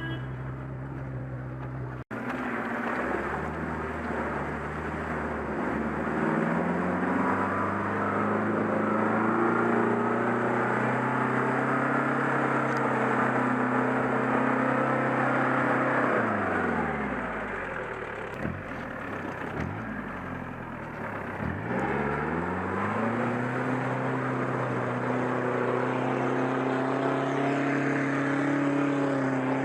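Off-road 4x4 engine running under load. Its pitch steps up early on, then drops and climbs again a couple of times past the middle as the revs change, before holding at a higher, steady note.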